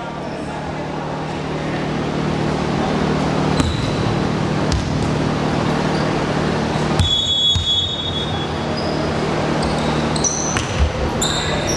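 Gym ambience of murmuring spectators and players over a steady low hum. A short referee's whistle blast comes about seven seconds in, and near the end there are a few thuds of a volleyball bounced on the hardwood floor by the server.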